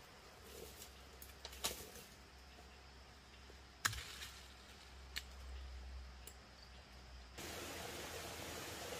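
Faint forest ambience with a low rumble and a few sharp clicks, the loudest about four seconds in. At about seven seconds it switches abruptly to a steady, louder hiss.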